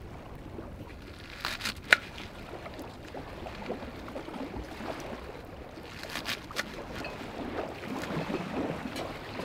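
Kitchen knife cutting a bunch of garlic chives on a wooden cutting board: soft taps and crisp slicing, with a few sharp clicks near two seconds in and again past the halfway mark, the sharpest one at about two seconds. A steady low outdoor background noise sits underneath.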